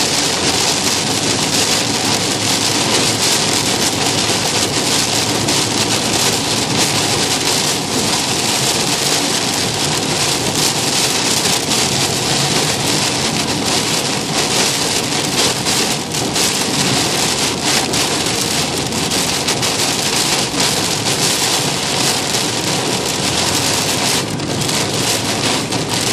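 Heavy rain pouring steadily in a thunderstorm, a loud, even hiss.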